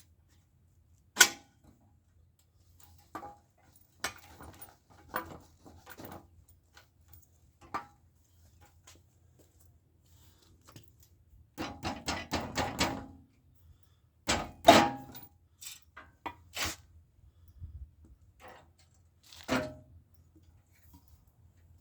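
Scattered clanks and knocks of hand tools and metal parts as the front forks come off a Tote Gote Model B mini bike frame, with a quick run of rattling clicks in the middle, over a faint steady low hum.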